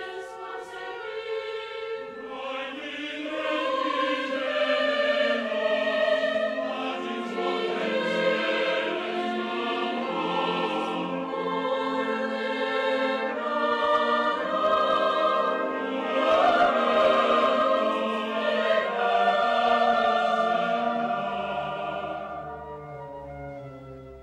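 Mixed choir singing a choral cantata in Valencian over a symphonic wind band. The full choir swells in about two seconds in and fades away near the end.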